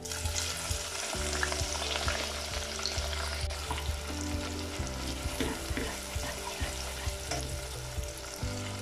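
Chopped onions sizzling as they fry in hot oil, the sizzle starting as they are tipped into the pot, with a slotted spatula clicking and scraping against the nonstick pot as they are stirred.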